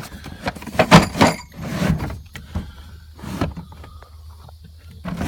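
Metal hand tools and their case clacking, knocking and rattling as they are handled in a toolbox. The sharpest clacks come in the first two seconds, with a few more near the middle before it settles to quieter rattling.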